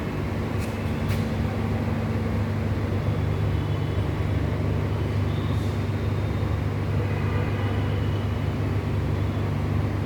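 A steady low machine hum with no change in level, with a few faint, brief high tones above it.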